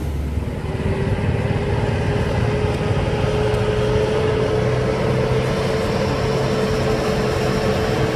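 Diesel truck engine running steadily with a continuous whine over a low rumble, the whine edging slightly higher in pitch.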